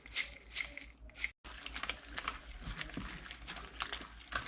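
Rapid crinkling, squishing strokes of a gochujang pork marinade being mixed by hand, with a brief cut-out about a second and a half in.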